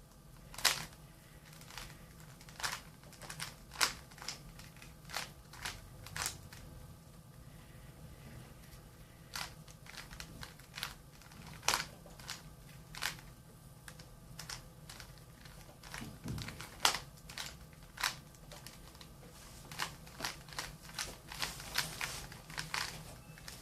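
Plastic Rubik's cube being turned during a solve: irregular sharp clicks and clacks of the layers, sometimes several in quick succession, with short pauses between runs of turns.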